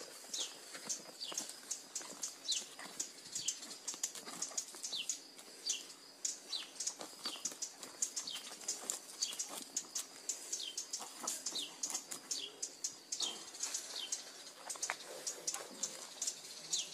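A songbird calling over and over: short, high chirps that sweep downward, about two a second. Faint scuffs and rustles sit underneath.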